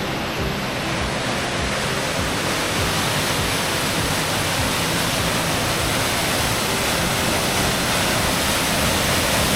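Waterfall pouring into a plunge pool: a steady rush of falling water that grows gradually louder.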